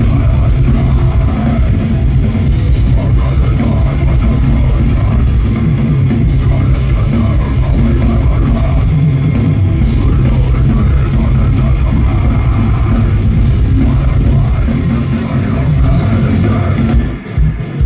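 Deathcore band playing live: heavy distorted guitars, drum kit and a vocalist at the microphone, loud and dense in the low end. About a second before the end the music breaks into short, choppy stop-start hits.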